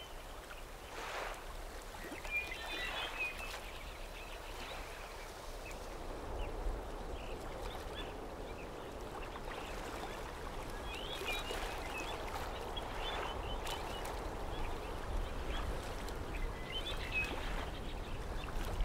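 Faint outdoor ambience, a soft steady hiss with small birds chirping a few times: about two seconds in, in the middle, and near the end.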